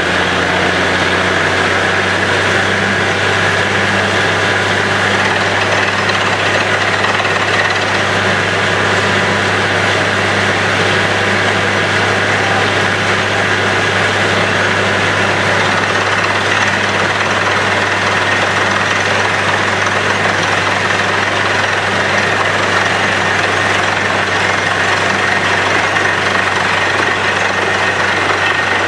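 Truck-mounted borewell drilling rig running steadily while drilling, a deep engine hum under a loud rushing hiss as water and rock cuttings are blown up out of the bore.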